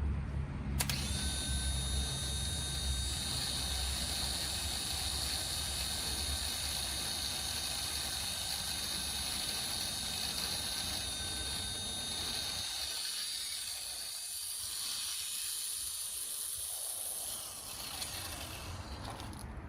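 A motor-driven machine running steadily, a high whine over a hiss. It starts sharply about a second in and stops near the end.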